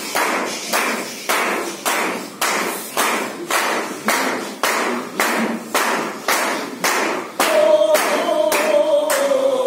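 A group of men clapping hands in unison, about two claps a second, over low group chanting. About seven and a half seconds in, one voice breaks into a long held call that slowly falls in pitch while the clapping goes on.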